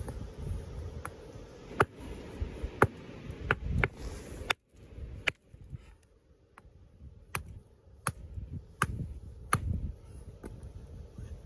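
A hammer striking a stone nodule held against a rock: a series of sharp knocks, about one every three-quarters of a second, as he tries to split the nodule open to reach an ammonite inside.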